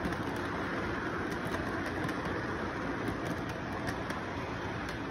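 Model train cars rolling along the track in a steady rumble, with faint light clicks from the wheels and track.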